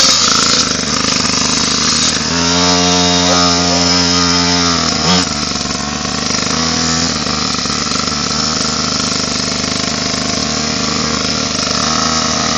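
Minimoto pocket bike's small engine running at high revs, its pitch rising and falling with the throttle. The note holds steady for a few seconds near the start and makes a quick swoop about five seconds in.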